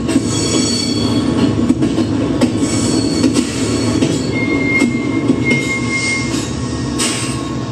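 Passenger train rumbling steadily alongside a station platform, with scattered clanks and several thin, high squeals from the wheels or brakes.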